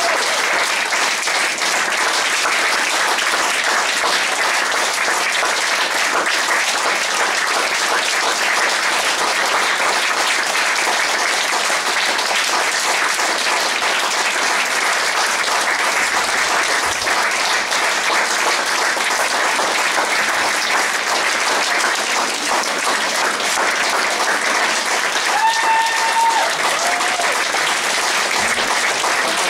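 Theatre audience applauding steadily through a curtain call. One short held call rises above the clapping near the end.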